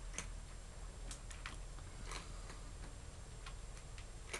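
Faint, irregular small clicks and ticks from cats moving in a wire cage, a few a second, with the sharpest click near the end.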